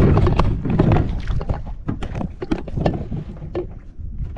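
Outrigger fishing boat on the water: wind rumbling on the microphone with scattered knocks and splashes against the hull, louder in the first second or so and then easing.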